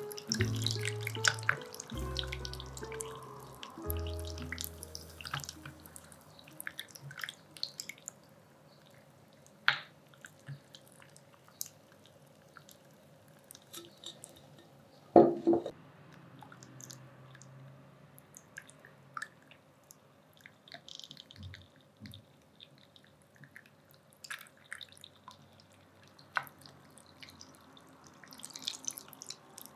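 Soft music notes fading out over the first few seconds, then ice cubes in a stainless steel bowl giving small scattered ticks and drips, with one louder knock about halfway through. Near the end, water starts pouring into the bowl.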